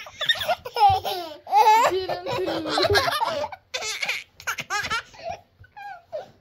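A toddler laughing in a run of quick bursts, trailing off near the end.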